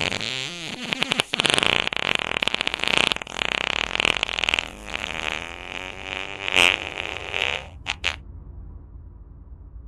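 A long, drawn-out comedic fart sound, sputtering and wavering in pitch for nearly eight seconds, then two short final toots.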